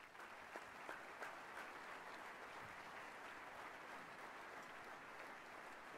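Audience applauding steadily, many hands clapping at once, greeting the announced award winner.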